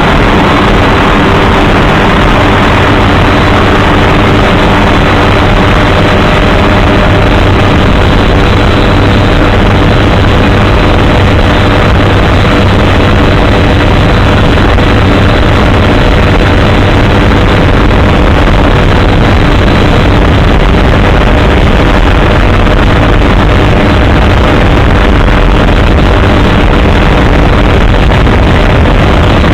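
Helicopter in flight: loud, steady rotor and engine noise with several constant humming tones under it.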